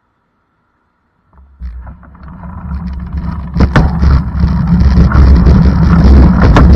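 Near silence, then about a second and a half in the loud, low rumble of a moving vehicle sets in and builds, with a few sharp knocks on top.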